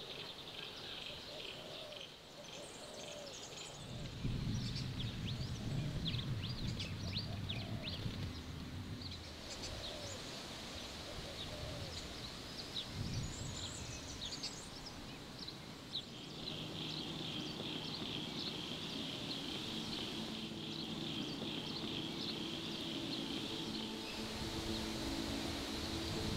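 Wild birds chirping and trilling over a low rumble that starts about four seconds in. Steady low tones join about halfway through.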